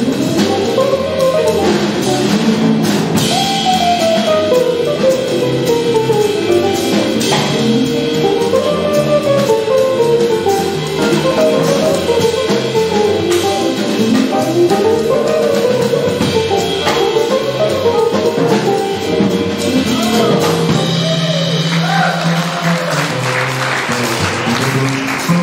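Small jazz combo playing live: a melodic guitar solo over walking upright bass, drum kit and keyboard. Near the end a long low note is held under the band.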